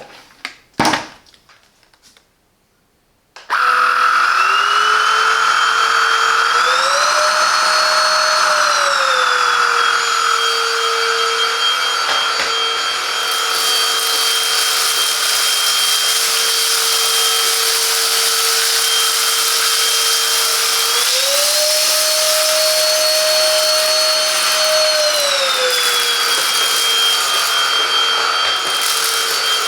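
Silvercrest cordless cyclone handheld vacuum cleaner's motor switching on a few seconds in and running with a steady high whine. Its pitch steps up twice for a couple of seconds and then drops back.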